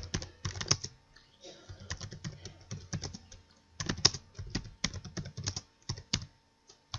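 Typing on a computer keyboard: irregular runs of keystrokes in quick clusters, with short pauses between words.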